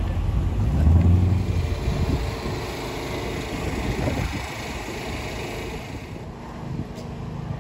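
A car engine running, loudest about a second in and then fading away.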